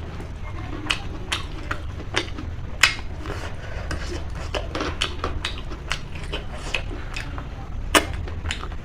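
Close-up eating sounds: irregular clicks and light clinks of food and a plate being handled, sharpest about 3 seconds and 8 seconds in, over a low steady hum.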